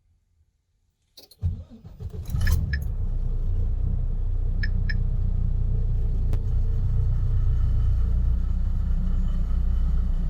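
Volvo D13 inline-six diesel cranking for about a second and catching at once, then settling into a steady idle, heard from inside the cab: a quick start that shows the long-cranking hard start cured by new injectors. Two short electronic beeps sound a few seconds after it catches.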